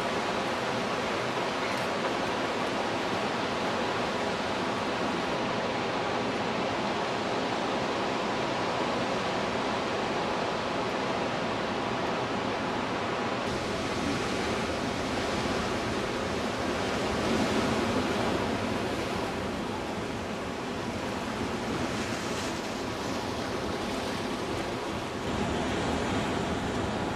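Ocean surf washing over beach and rocks, with wind on the microphone: a steady rushing noise that turns brighter about halfway through.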